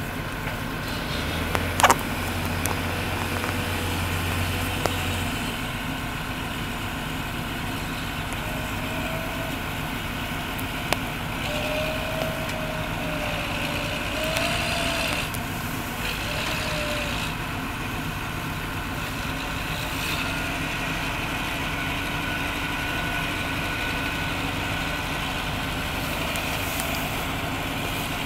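Massey Ferguson 699 tractor's six-cylinder diesel engine running steadily while it works its front loader, with a single sharp clank about two seconds in. A few faint short wavering whines come and go in the middle.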